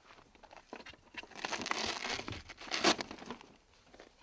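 Level 3A soft body armor vest in its white fabric carrier being gripped and lifted for inspection: fabric and plastic rustling and crinkling, loudest a little before the end.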